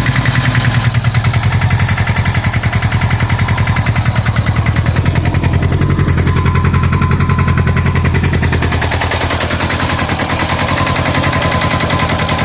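Honda Gold Wing GL1100's flat-four engine idling with a steady, rapid, even pulse and a rattle.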